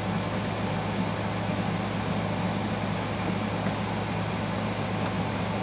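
Steady background hum with an even hiss, such as a room fan or air conditioner makes; no distinct events stand out.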